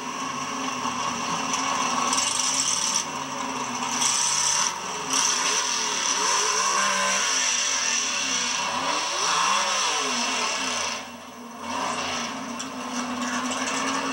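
Drag car's engine running loud and rough at low speed as the car backs up from its burnout and creeps to the starting line, with its pitch rising and falling a few times in the middle and a brief drop in level about eleven seconds in.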